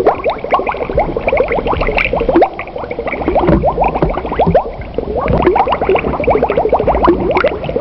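Flock of young ducks peeping: many short calls sliding in pitch and overlapping, several a second.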